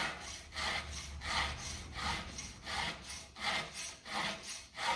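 Round file rasping across the cutters of a chainsaw chain in steady hand strokes, about one stroke every three quarters of a second. The chain is being resharpened after running into stones, more than a simple touch-up.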